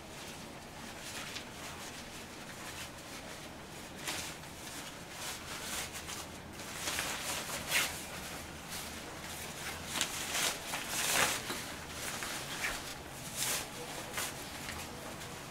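Dog raincoat fabric rustling and swishing in irregular short bursts as it is pulled onto a dog and adjusted, busiest in the second half.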